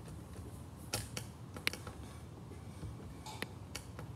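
Light clicks and creaks from a die-cast Rolls-Royce Phantom model car as its body is pressed down on its spring suspension: a handful of small ticks at uneven intervals.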